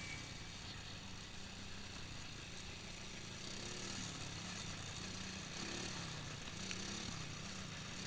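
Small engine idling faintly, a steady low hum that wavers a little in pitch.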